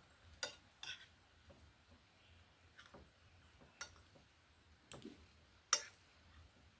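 Eating sounds, with mouth or lip smacks and clicks as grilled fish is eaten. There are about six short, sharp clicks at uneven intervals, the loudest near the end.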